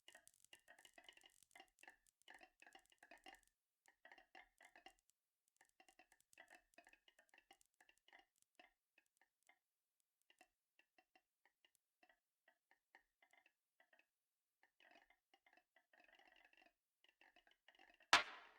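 Marbles rolling and clacking along a marble run track, a faint stream of many small, quick ringing clicks that thins out around the middle and picks up again. Loud music starts just before the end.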